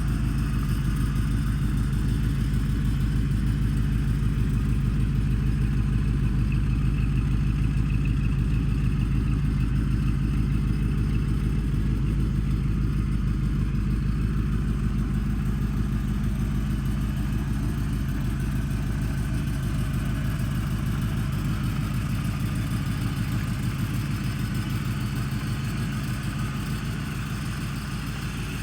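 Fox-body Ford Mustang SSP's 5.0 V8 idling steadily, a low even pulsing that grows a little quieter near the end.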